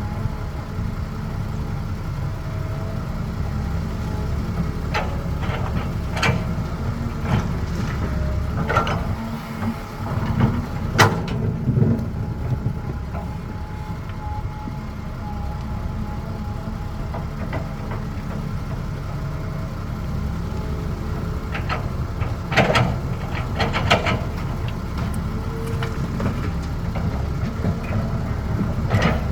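Diesel engine of a Caterpillar 320 excavator running steadily, with scattered short clanks and knocks over it, a few in a cluster partway through and more later.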